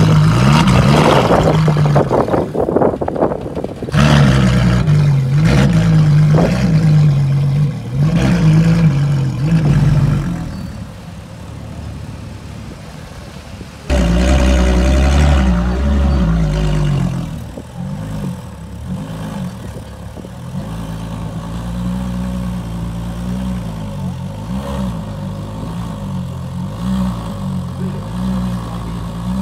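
Ferrari LaFerrari's V12 engine revved in repeated blips, several loud stretches that stop and start, then running at low revs with a wavering note as the car creeps along.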